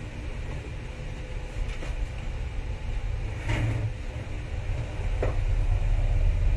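Steady low rumble with a faint hum, growing louder about five seconds in, with a few faint knocks over it.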